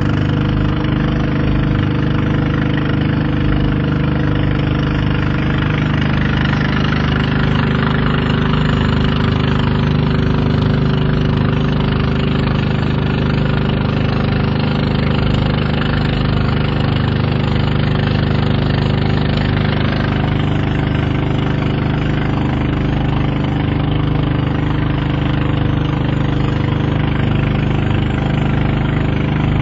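Boat engine running steadily under way, an even low drone with a constant rush of wind and water over it.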